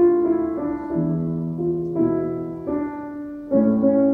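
Slow, gentle piano music, with new notes and chords struck every half second to a second.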